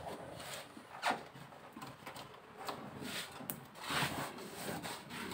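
Hand rubbing and pressing a self-adhesive foil-faced foam insulation sheet onto the underside of a car bonnet: several short rustling rubs.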